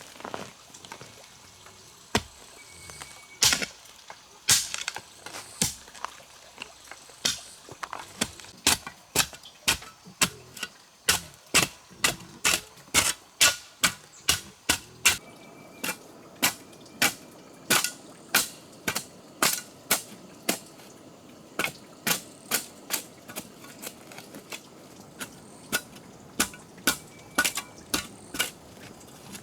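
Repeated sharp strikes, spaced out at first and then coming steadily about two a second from around eight seconds in, typical of a tool striking hard material. A faint short high whistle sounds three times in between.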